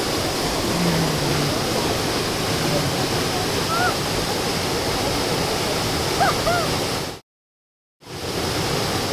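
Waterfall rushing: a loud, steady wash of falling water. The sound drops out completely for under a second near the end.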